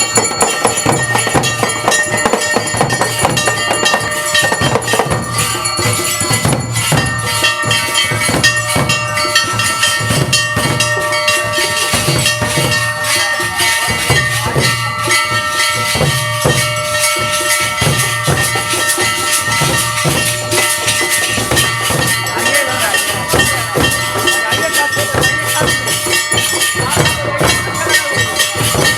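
Hindu temple aarti: bells and hand cymbals struck in a fast, continuous clatter over a steady low drumbeat, with bell tones ringing on.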